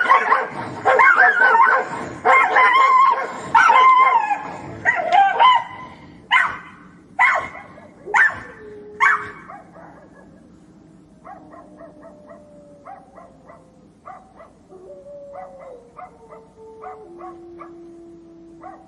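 Dogs fighting: dense snarling and barking for about the first six seconds, then four sharp barks about a second apart. After that come quieter short yips and faint drawn-out whines.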